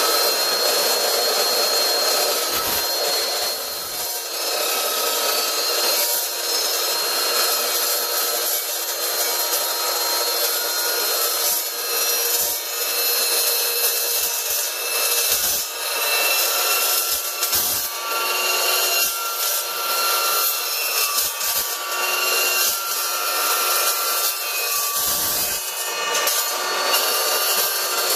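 Evolution S380 15-inch low-RPM dry-cut metal chop saw cutting through square metal tubing: a steady high whine over a continuous dense scraping cutting noise. The whine steps up slightly near the end.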